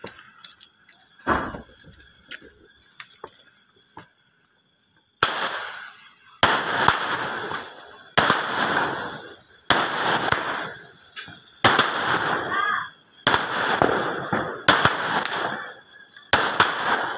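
Fireworks cake firing: a sharp crack and a few small pops, a short pause, then a steady run of shots about every second and a half, each a loud report followed by crackling.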